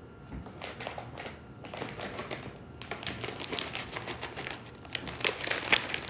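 Snack packages and box contents being handled: a run of light clicks, taps and crinkles of plastic and cardboard packaging, busiest near the end.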